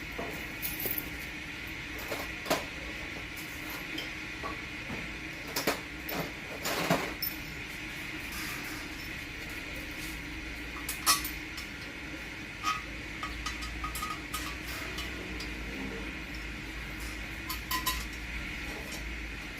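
Scattered metallic clinks and taps, hand tools and small metal parts knocking against metal, over a steady background hum; the sharpest clink comes about eleven seconds in.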